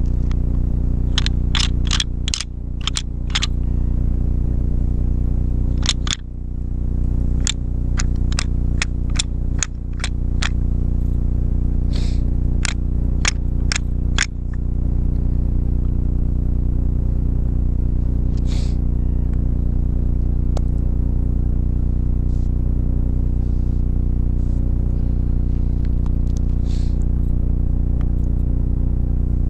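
Sharp clacks and clicks in quick irregular clusters, the hunter's noise-making to call in deer, for about the first fifteen seconds, then only a few faint ones. A loud steady low hum runs underneath.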